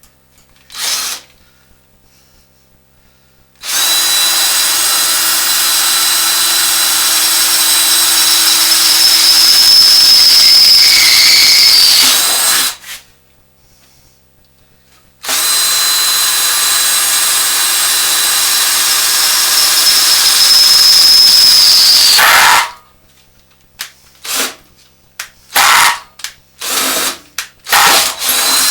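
Electric drill running a 17/64-inch bit through the leg of a Shopsmith woodworking machine: two long drilling runs, one for each hole, each rising slightly in pitch near its end, then several short bursts.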